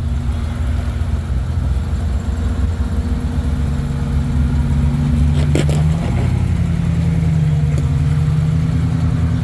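A 4x4's engine running at low revs while the truck crawls over trail rock, its pitch rising a little about halfway through. A single sharp knock comes about halfway through.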